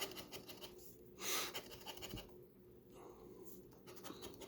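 Light scratching strokes on a scratch-off lottery ticket, the coating being scraped away in short strokes, with a breath about a second in.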